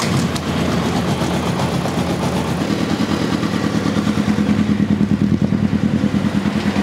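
Formula König race car engine, just started, running steadily with an even pulsing beat, after its cooling system has been filled with coolant.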